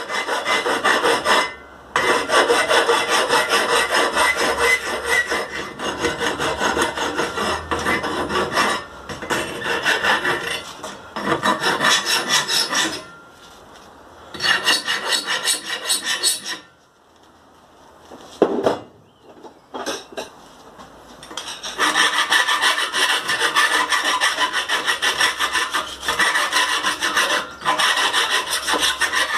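Hand file rasping back and forth on a steel pipe in steady runs of strokes, cleaning up and smoothing freshly cut notches. The filing stops briefly a few times and has a longer pause about two-thirds of the way through, with a single knock in that pause.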